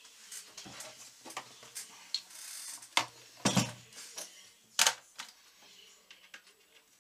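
Handling noise: a black plastic tub holding a tool set down and shifted on a wooden workbench, a string of sharp knocks and clatters, the loudest about halfway through and again just before five seconds in.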